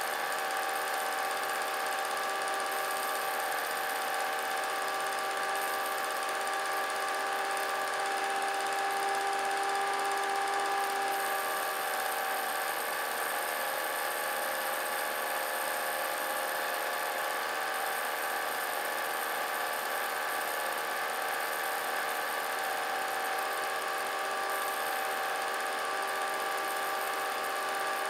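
Vintage film projector running: a steady mechanical whir from its motor, holding several even tones.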